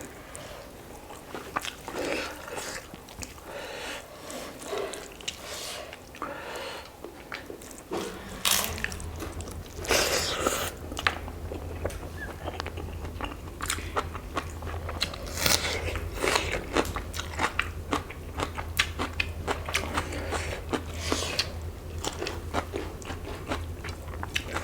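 Close-miked eating: people biting, crunching and chewing through a meal of chicken curry with rice and salad, with many short crisp bites and mouth noises. A low steady hum comes in about a third of the way through.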